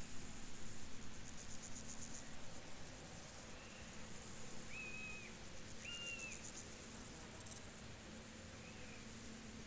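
Field crickets chirping in fast, high-pitched pulsing trills that come in bouts, with two or three short whistled notes a little past halfway.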